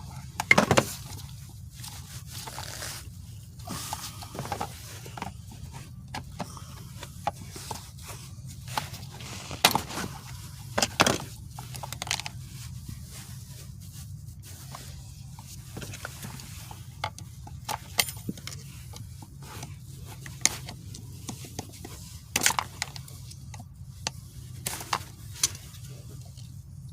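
Scattered clicks, taps and scrapes of hand tools and metal and plastic parts while a manual transmission shifter assembly is taken apart, over a steady low hum.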